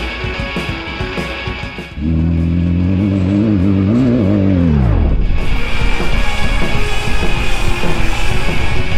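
An off-road race vehicle's engine passing over background rock music: the engine note comes in loud about two seconds in, wavers, then drops steeply in pitch as it goes by around the five-second mark. A loud rush of engine and tyre noise follows.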